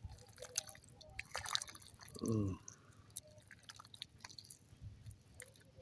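Small irregular wet splashes, drips and squelches of hands working through mud and shallow water while fishing by hand. A man's short falling 'oh' cuts in about two seconds in.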